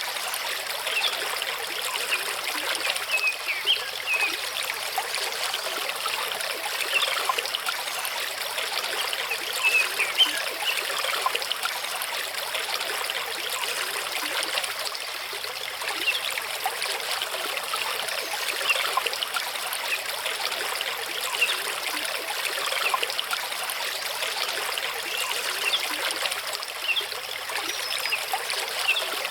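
Mountain stream running over rocks: a steady wash of water with many small, quick trickles on top.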